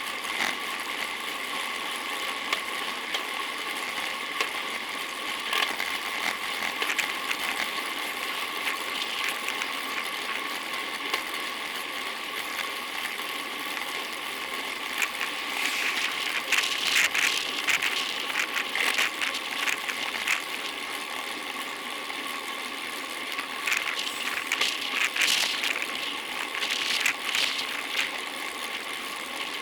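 Steady hiss of a road bicycle on the move, tyres on pavement and wind, with bursts of clicking and rattling about halfway through and again near the end.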